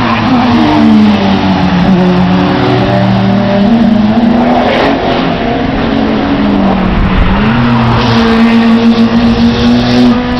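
Racing car engines at high revs going past, their pitch rising and falling with gear changes; about seven seconds in the note drops sharply and climbs again.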